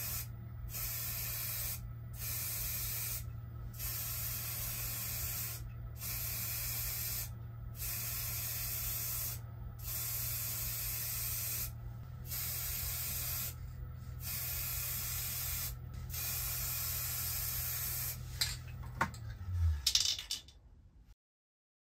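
Aerosol spray-paint can hissing in about ten bursts of one to two seconds with short gaps, over a steady low hum from the woodturning lathe. The hum falls in pitch and dies away near the end as the lathe stops.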